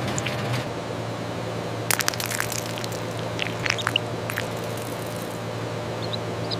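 A steady machine hum in a chicken hatchery, with scattered clicks and crackles, bunched about two seconds in and again around four seconds, and a few faint short high chirps.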